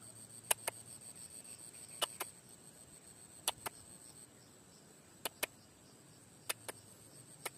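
Faint, sharp clicks in quick pairs, one pair about every second and a half, over a faint steady high-pitched tone.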